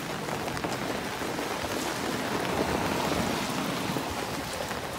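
Heavy rain falling on an umbrella held overhead and on the wet street, a steady dense hiss that swells a little midway.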